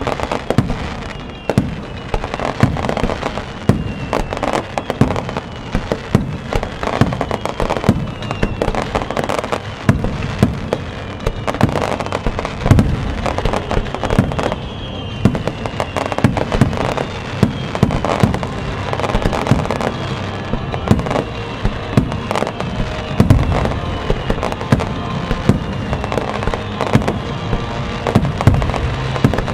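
Rapid barrage of aerial fireworks shells of a star mine bursting, several loud bangs a second with no let-up, over music played along with the show.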